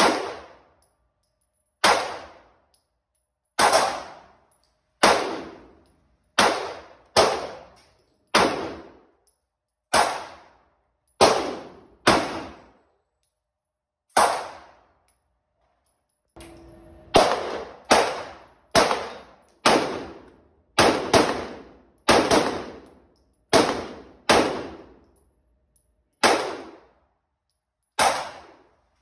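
Subcompact semi-automatic pistol fired shot after shot at an indoor range: about twenty-two sharp cracks, mostly a second or so apart, each with a ringing echo off the range walls. There is a longer pause of about three seconds midway.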